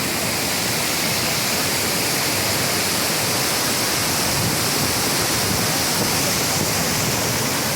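Waterfall running: a loud, steady rush of falling water.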